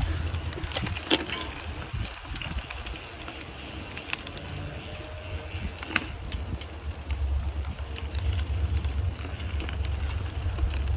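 Bicycle ride on a dirt trail: a steady low wind rumble on the microphone over the noise of the tyres rolling on dirt, with a few sharp clicks from bumps along the way.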